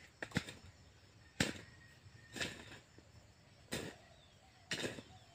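Hand hoe chopping into soil in a steady rhythm, one short thud about every second, five or six strikes in all.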